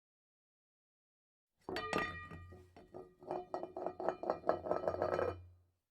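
A short snatch of music made of rapid, ringing clinking notes, starting about two seconds in after dead silence and cutting off near the end.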